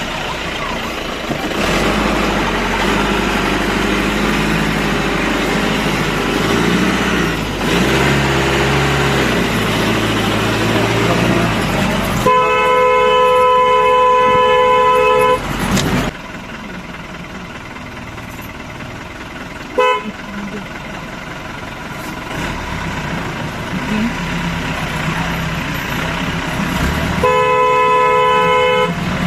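Jeep engine running under load, its note shifting in steps, then the horn sounds a long two-tone blast of about three seconds, a quick toot, and another blast near the end.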